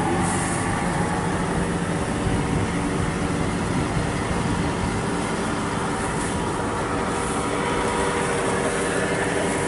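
World WD102 Pro rice combine harvester's engine running steadily at a standstill, an even mechanical hum with several steady tones.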